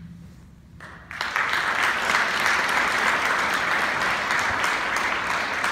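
The last chord of the orchestra and choir fades out. Audience applause breaks out about a second in and carries on steadily.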